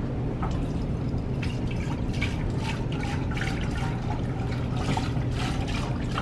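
Broth pouring from a carton into an electric cooking pot, in a string of uneven glugs and splashes.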